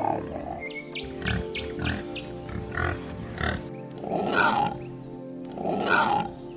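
Animal grunting calls over steady background music: a run of short calls, then two louder, longer ones about four and six seconds in.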